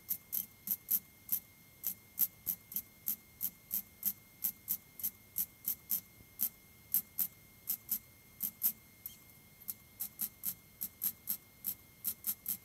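MIG welder laying spot welds along the edge of a Classic Mini inner wing repair panel, fired as a long run of short blips, about two or three a second with irregular gaps.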